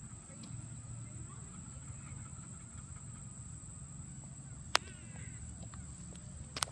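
Quiet outdoor background with a steady high-pitched whine and a low hum, broken by a sharp click about five seconds in and another near the end.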